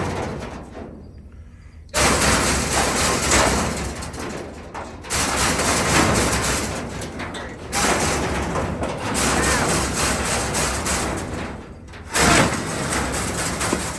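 Metal trap and trailer panels scraping and rattling as trapped wild hogs push and scramble against them. The noise comes in long stretches that start abruptly about two, five, eight and twelve seconds in.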